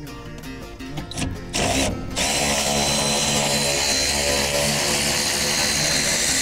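Cordless drill spinning a socket on a long extension to run out a brake master cylinder mounting bolt: a short burst about a second and a half in, then a steady high-pitched whine that runs on.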